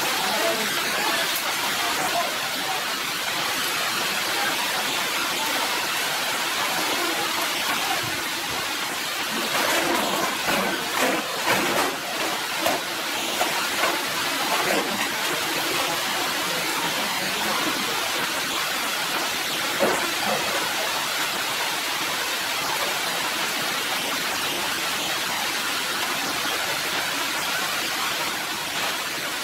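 Heavy rain falling steadily on foliage and a wet concrete slab, with a few sharper taps between about ten and fifteen seconds in and once more around twenty seconds.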